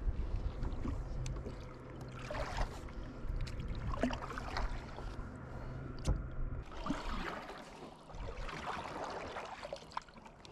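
Water swishing and splashing around a kayak in uneven bursts, over a low steady hum that cuts off about two-thirds of the way in. A single sharp knock comes just before the hum stops.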